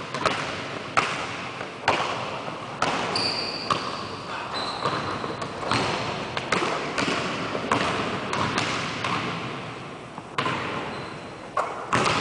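Basketball bouncing on a hardwood gym floor, about one bounce a second at first and then sparser, each bounce echoing in the large hall, with a few short, high sneaker squeaks.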